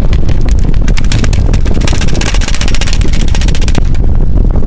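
Paintball markers firing rapid volleys, many sharp pops a second from several guns, thinning out near the end. Underneath is a loud low rumble of wind on the microphone.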